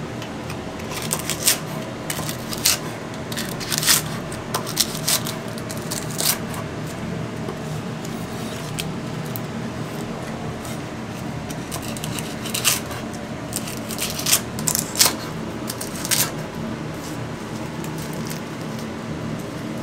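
Chef's knife chopping grilled chicken on a thick wooden cutting board: sharp knocks in two flurries, one in the first several seconds and another a little past the middle, over a steady background hum.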